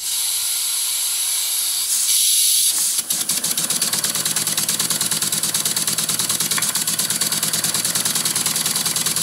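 Stuart Progress model steam engine run on compressed air: a steady hiss as the air is let in, then about three seconds in the engine starts and keeps running with a rapid, even exhaust chuff.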